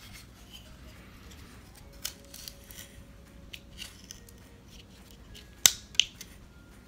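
Carving knife cutting shavings from a wooden block by hand: faint, scattered slicing and scraping strokes, with two sharp clicks a little before the end.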